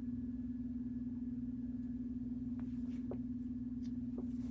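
A steady low hum, with a few faint light ticks in the second half.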